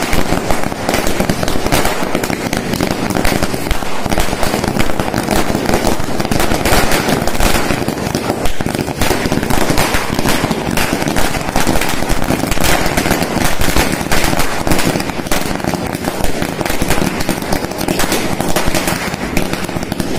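Firecrackers going off on the ground in a dense, rapid string of bangs and crackles with no pause, loud throughout.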